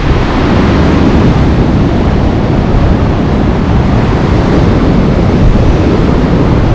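Storm wind buffeting the microphone in a loud, steady rumble, with storm surf breaking on the shore beneath it.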